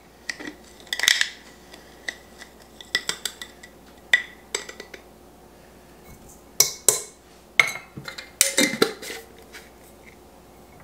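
Kitchen utensils clinking and scraping against a bowl as brown sugar is measured, packed and added, in short irregular knocks, some ringing briefly.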